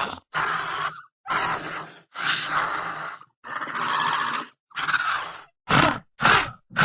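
Fan-made Atrociraptor dinosaur vocalisations: a string of about eight short growling calls with brief gaps between them, the last few shorter and louder.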